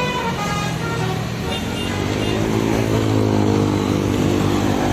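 Bus engine pulling away, its low drone rising in pitch from about two seconds in.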